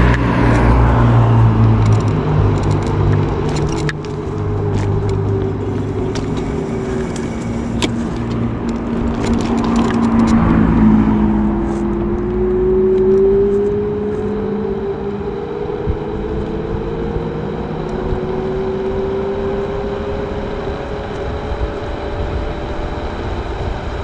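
Gyroor Urban Max C1 electric scooter under way: the hub motor's whine rises slowly in pitch over the second half as it gathers speed, over road and wind noise. A lower vehicle hum with several pitched lines sounds for the first ten seconds or so.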